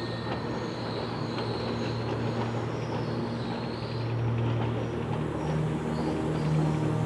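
A steady low hum with a faint wavering high whine above it, swelling a little about four seconds in.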